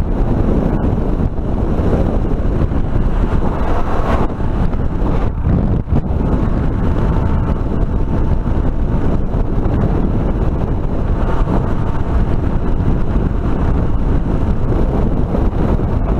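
Heavy, steady wind noise on the microphone at road speed, with the single-cylinder engine of a 2005 Suzuki DR650 dual-sport motorcycle running underneath.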